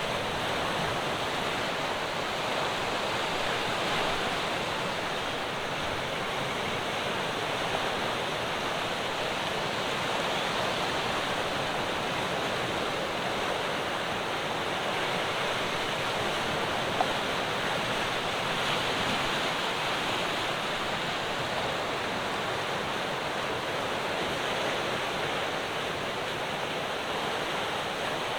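Ocean surf: a continuous wash of waves breaking on the shore, swelling gently now and then without distinct crashes.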